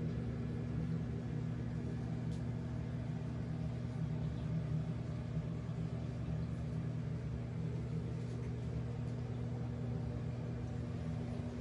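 Steady, even hum of a large reef aquarium's pumps running, with a low mechanical drone that holds a few constant tones.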